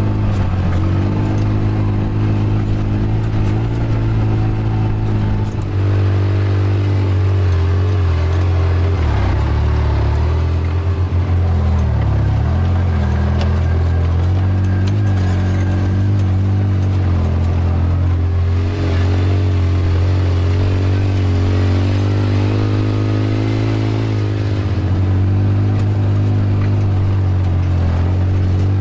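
Off-road vehicle engine running steadily under way, its pitch dipping and climbing back a few times as the throttle changes.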